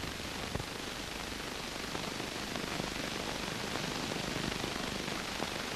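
Steady hiss with faint crackle and a couple of soft clicks, the background noise of an old film soundtrack.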